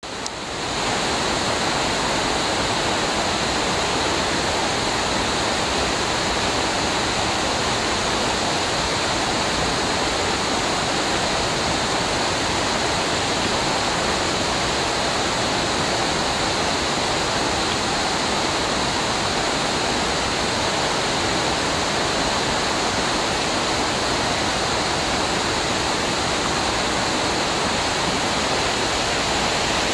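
River water rushing steadily over rapids, rising in over the first second.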